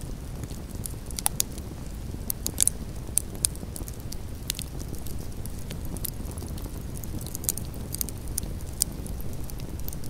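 Wood campfire burning: irregular sharp crackles and pops over a low, steady rumble. A few louder pops come in the first few seconds and again near the end.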